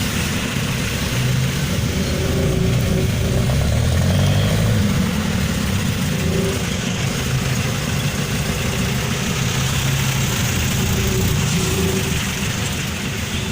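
Engines of vehicles idling and creeping along in heavy street traffic, a steady low rumble that swells slightly around the middle.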